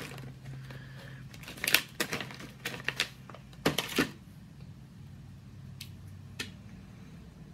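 Plastic snack pouch crinkling as a hand reaches in for jerky pieces, in a few short crackly bursts over a couple of seconds, then a couple of single crackles near the end.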